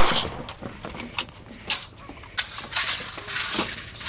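A sharp, loud click at the start, then scattered short clicks and brief rustling hisses.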